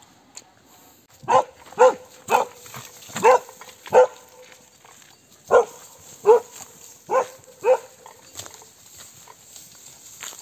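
A dog barking: about nine short, sharp barks in two runs, with a pause of a second or so near the middle.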